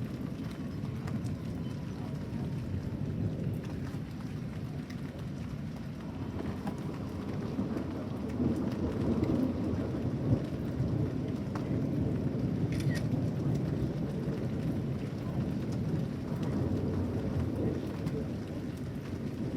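Rain falling in a severe thunderstorm, with a low rumble of thunder that swells about eight seconds in and eases near the end.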